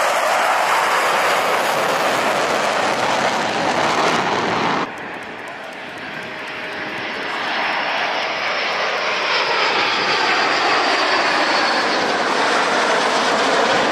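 Jet noise of Blue Angels F/A-18 Super Hornets flying overhead in formation, loud and steady. It drops off sharply about five seconds in, then another pass swells back up over the next few seconds, with a faint high whine slowly falling in pitch.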